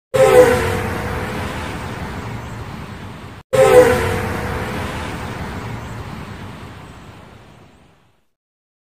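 Outro sound effect: a sudden hit with a few falling tones that fades away over about three seconds. It is cut off abruptly and played again, fading out by about eight seconds.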